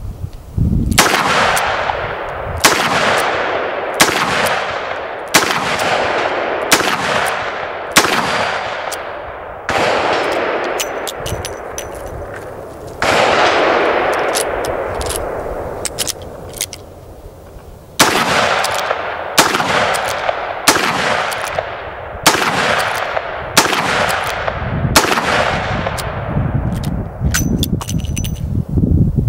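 Dan Wesson 715 .357 Magnum revolver firing a dozen or more shots, most about a second and a half apart with a couple of longer pauses. Each is a sharp crack with a long echoing tail.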